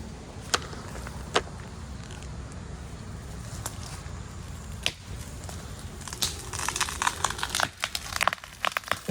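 A felled pine tree's hinge wood cracking and snapping as the trunk goes over. Scattered pops come first, then a dense run of snaps and crackles over the last three seconds, ending in a loud heavy crack or thud as the tree comes down.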